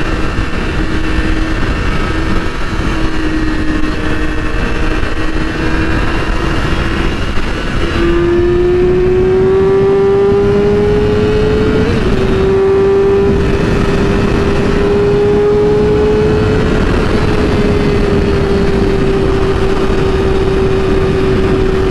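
2008 Yamaha R6's inline-four engine running steadily while riding, over a haze of wind noise. About eight seconds in the engine note rises as the bike accelerates, breaks briefly near twelve seconds, then holds steady at the higher pitch.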